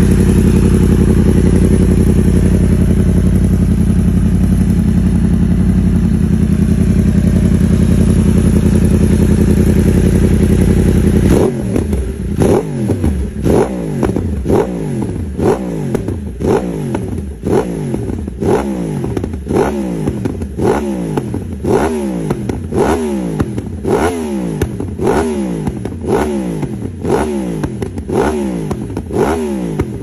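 2021 Yamaha YZF-R1's crossplane inline-four through a Two Brothers exhaust. It runs at a steady engine speed for about eleven seconds, then is blipped over and over, a bit more than once a second, each rev jumping up and falling away.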